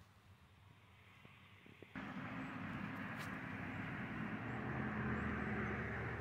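Faint background with a few light clicks, then about two seconds in a steady engine-like hum and rumble starts abruptly and keeps going.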